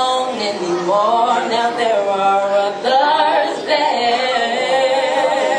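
A group of young women singing together without accompaniment, holding long notes with a wavering pitch.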